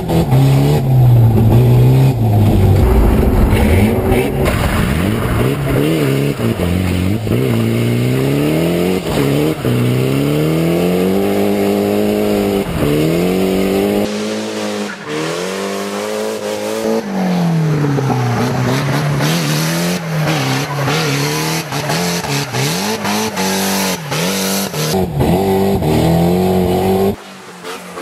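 Drift car engine revving hard, its pitch climbing and dropping again and again as the car accelerates, shifts and slides, with tyre squeal. The first half is heard from inside the cabin; about halfway through it is heard from outside the car.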